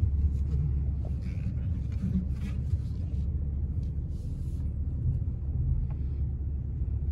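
Low, steady rumble of a vehicle engine and road noise as the rig rolls slowly, with a few faint, brief hisses.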